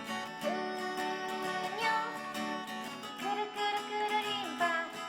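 Background music: plucked guitar accompaniment under a melody of long held notes that slide between pitches.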